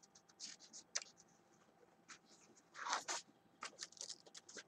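Faint rustling and scraping of sketchbook pages being handled and turned, with several small clicks and a fuller rustle about three seconds in.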